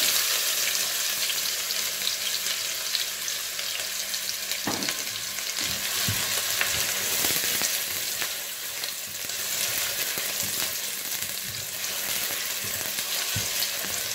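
Chopped onion sizzling in hot ghee with whole spices in a stainless steel pot, loudest as the onion goes in and slowly easing off. It is stirred with a silicone spatula, with a few light knocks against the pot.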